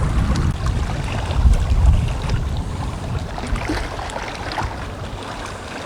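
Strong wind buffeting the microphone with a low rumble, over waves lapping at the shore.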